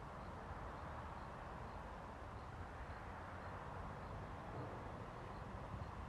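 Steady outdoor background noise: a low rumble and hiss, with a faint high tick repeating about twice a second.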